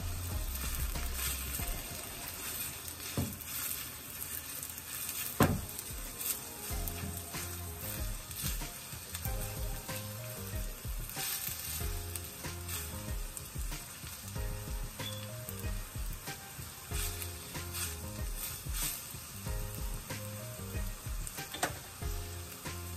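Chopped onion sizzling as it fries in olive oil in a clay pot, stirred with a spatula that now and then knocks against the pot; the loudest knock comes about five seconds in.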